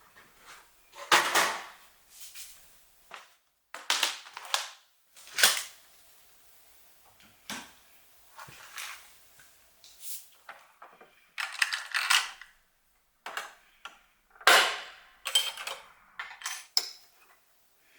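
Irregular sharp clicks and knocks of small hard objects being handled and set down, some followed by a short scraping rustle, with quiet gaps between them.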